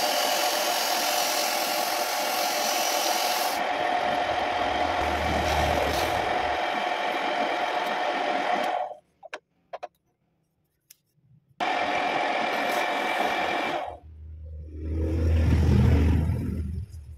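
A homemade wood lathe running with a hand rubbing against the spinning wooden piece, a steady scraping hiss over a steady whine. It stops abruptly about nine seconds in, leaving a few clicks, and starts again a couple of seconds later. Near the end comes a louder, deeper bout of rubbing as abrasive is pressed on the turning wood.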